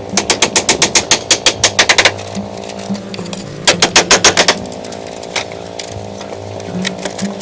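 Two bursts of rapid, evenly spaced hammering impacts, about eight a second, from a striking tool: the first lasts about two seconds, the second under a second, over a steady hum.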